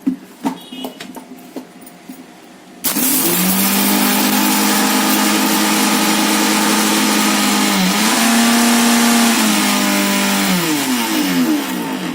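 Electric mixer grinder grinding rock sugar into powder: a few knocks at the jar, then the motor starts about three seconds in, runs loud and steady with a brief dip in pitch about eight seconds in, and is switched off near the end, its whine falling as it winds down.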